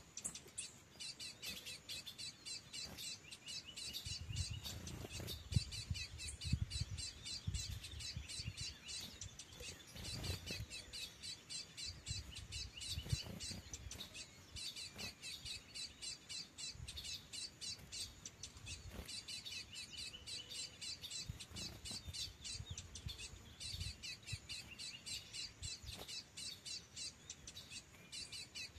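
Small birds chirping rapidly and without pause, with a few soft low thumps in the first half.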